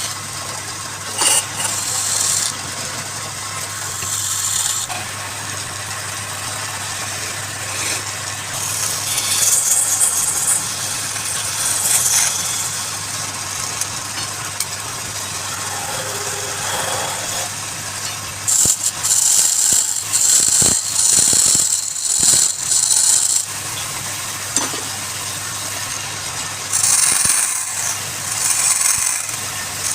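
Wood lathe motor running steadily, with repeated bursts of a turning tool cutting into the spinning wood, each lasting a second or two.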